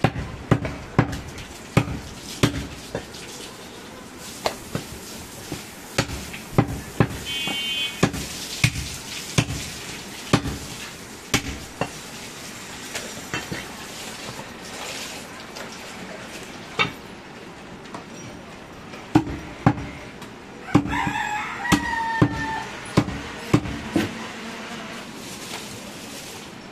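A heavy butcher's knife chops goat meat and bone on a wooden log block: sharp, irregular chops about one a second, thinning out in the middle. About three-quarters of the way through, a drawn-out animal call lasts about two seconds.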